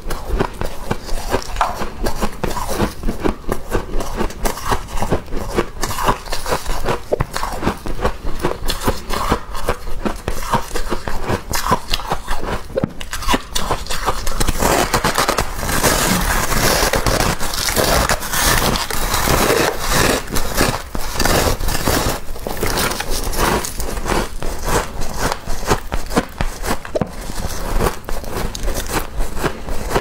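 Thick freezer frost crunching and crackling as a big chunk is squeezed by gloved hands, then bitten and chewed close to the microphone. The densest, loudest crunching comes with the bite about halfway through.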